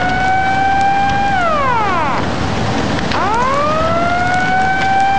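Outdoor tsunami warning siren wailing over a steady rushing noise. It rises to a steady pitch, holds for about a second, falls away, then rises again about three seconds in and holds.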